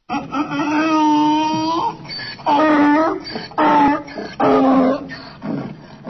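Donkey braying: one long call, then four shorter calls in a row, with quieter in-breaths between them.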